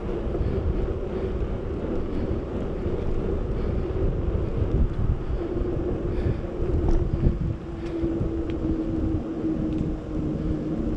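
Wind buffeting the microphone of a handlebar-mounted camera on a moving bicycle, with rolling noise from the bike. A steady hum runs through the second half.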